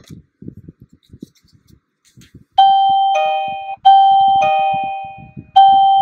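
Wireless doorbell receiver playing a two-note ding-dong chime three times in a row, about a second and a half apart, each a higher note followed by a lower one that rings out and fades. Faint low knocks come before the first chime, which starts about two and a half seconds in.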